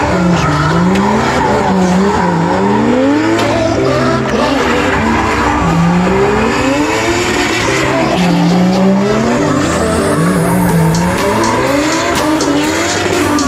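Drift car engine revving hard, its pitch rising and falling every couple of seconds, with the tyres squealing and skidding as the car slides sideways.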